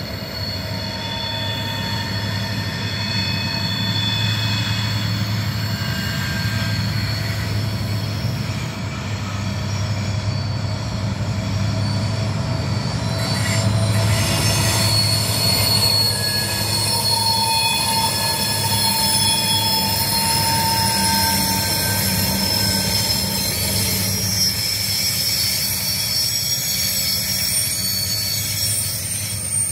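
Freight train led by TasRail TR class diesel-electric locomotives passing with its container wagons. A steady low engine hum runs under high-pitched wheel squeal of several shifting tones.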